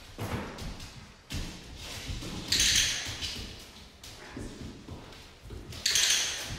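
Thuds and scuffs of a German shorthaired pointer puppy and its handler moving about on a hard floor, with two short rustling scrapes, one about two and a half seconds in and one near the end.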